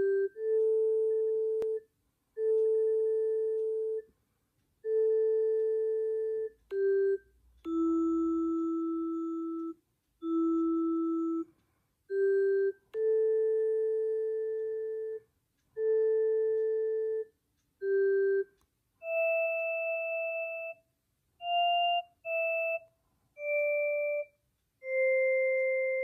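Glass harp app on a tablet playing a slow tune, one sustained, pure glassy note at a time, each held a second or two with short gaps. The tune moves higher about three quarters of the way through and ends on a long held note.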